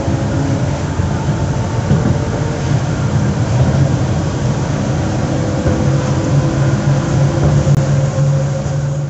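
Z2N-family electric multiple unit Z 20777 standing stationary with its on-board equipment running: a steady hum made of a low drone and several higher steady tones.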